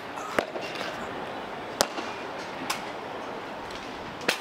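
Four sharp cracks or knocks at uneven intervals, the third one fainter, over a steady outdoor background hiss.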